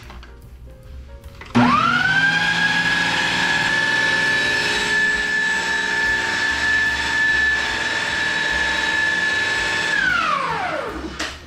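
Countertop blender motor switched on about a second and a half in, spinning up quickly to a steady high whine as it blends a sauce thinned with chicken stock. It is switched off near the end and winds down with a falling pitch.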